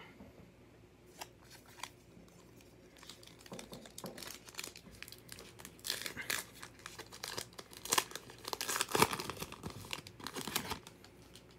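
Wrapper of a Topps Heritage baseball card pack crinkling and tearing as it is opened, in irregular rustling spells that start about three seconds in, after a few light clicks.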